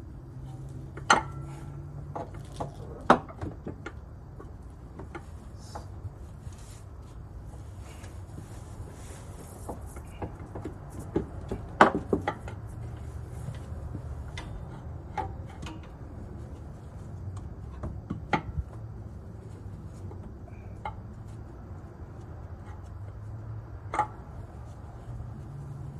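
Scattered metallic clinks and knocks of tools and metal parts being handled while a rear engine mount is worked into place under a car, a few of them sharp and loud, over a low steady hum.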